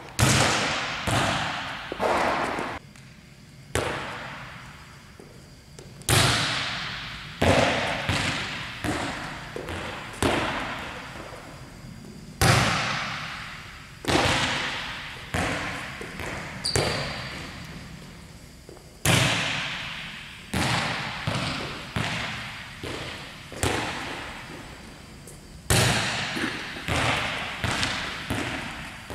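Volleyballs being struck and bouncing on a hard gym floor. Each sharp smack is followed by a run of smaller, closer-spaced bounces, and the hits echo in a large hall.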